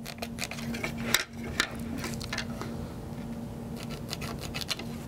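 A marker scratching and squeaking across a bowling ball's surface as lines are drawn along a layout template, with irregular light clicks and taps from the template and hands on the ball. A steady low hum runs underneath.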